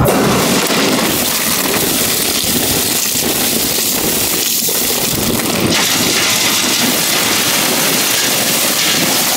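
Crushed ice pouring from an overhead ice-plant chute into a plastic basket: a loud, steady hiss that grows brighter about six seconds in.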